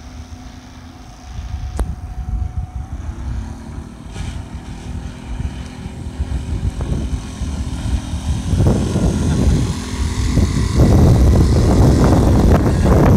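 Small outboard motor running with a steady drone, growing louder as the boat comes close.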